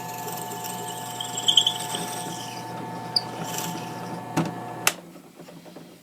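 Electric drill running, boring a 1/4-inch bolt hole in wood, with short bursts of the bit cutting. The motor stops abruptly about five seconds in with a sharp knock.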